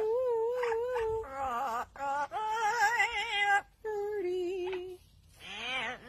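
Amazon parrot singing long, wavering held notes with a strong vibrato, in phrases about a second long with short breaks, like an opera singer.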